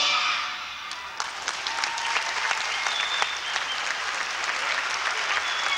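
A dance number's music ends right at the start, and the audience breaks into applause, clapping steadily from about a second in.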